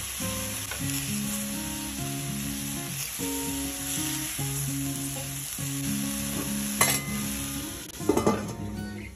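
Chicken breast sizzling in a stainless steel pan, with a sharp metal click of tongs and then a clatter of the steel lid going onto the pan near the end. Background music plays underneath.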